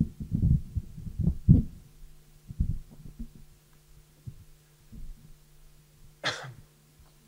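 Microphone handling noise: low thumps and knocks as the lectern microphone on its stand is adjusted, densest in the first two seconds and then only now and then, over a steady low hum. A short breathy rush of noise comes about six seconds in.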